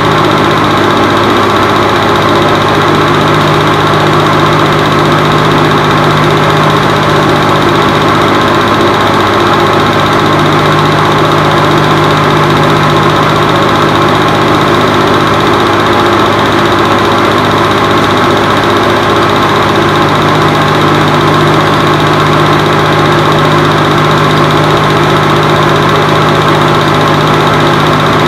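Home-movie film projector running: a loud, steady mechanical whir and hum that does not change.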